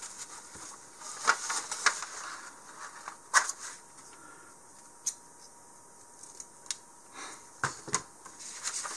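Scissors snipping through a paper instruction sheet: a few sharp snips with paper rustling over the first three and a half seconds, the loudest snip a little after three seconds in. After that, a few scattered light clicks and paper handling.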